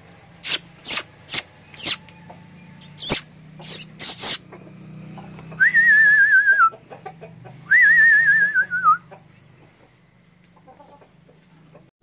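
A run of about eight sharp, high chirps, then two long warbling whistles with a quick wavering pitch, each about a second long and about a second apart.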